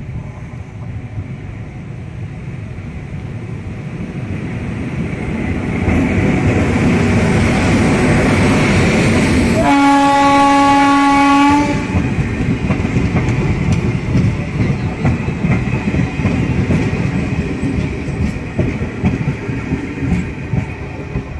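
A train hauled by a WAG-7 electric locomotive passes close by: the rumble and clatter of its wheels build as it approaches. One horn blast of about two seconds sounds near the middle, and the coaches then keep clattering past.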